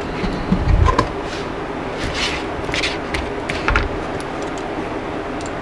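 Scattered light knocks, clicks and brief clatters of food and utensils being handled while a snack plate is put together, over a steady background hum.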